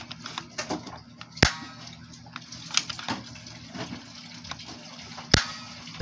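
Parts of a toy pellet Uzi being handled and pressed together: scattered small clicks and knocks, with two sharper knocks, one about a second and a half in and one near the end.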